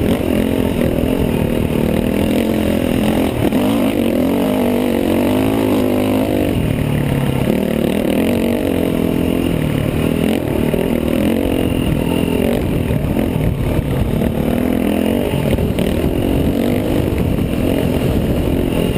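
KTM dirt bike engine running under the rider, its pitch rising and falling repeatedly as the throttle is worked along a dirt trail.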